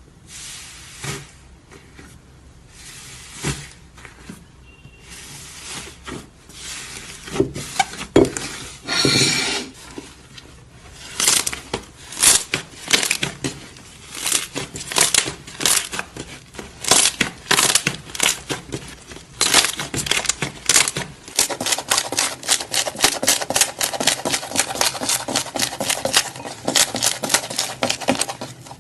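Slime being squeezed, stretched and poked, giving wet clicks and pops that grow more frequent, turning into a fast crackle in the second half.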